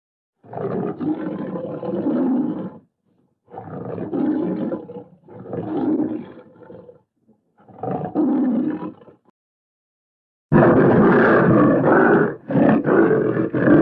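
Cave bear roar sound effects: four separate roars, each a second and a half to two and a half seconds long, then a louder, longer roar starting about ten seconds in.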